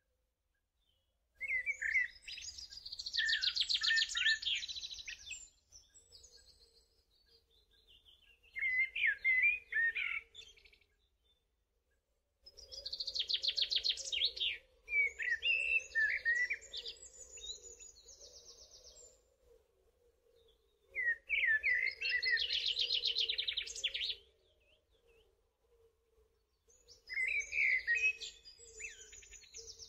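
Songbirds singing in bursts of rapid high chirps and trills, each lasting a few seconds, with short pauses between them.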